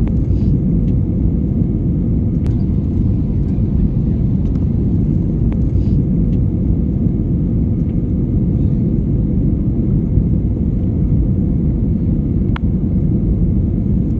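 Airliner cabin noise on final approach: a steady low rumble of engines and airflow heard from inside the passenger cabin, with a few faint clicks.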